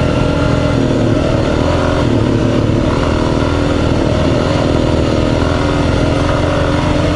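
Dual sport motorcycle engine running at steady, fairly low revs while riding along, its pitch rising and dipping only slightly.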